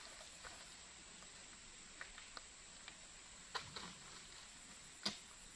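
A few faint, sharp knocks, the loudest near the end, as oil palm fruit bunches are lifted with a pole and dropped into a dump truck's steel bed, over a steady high insect drone.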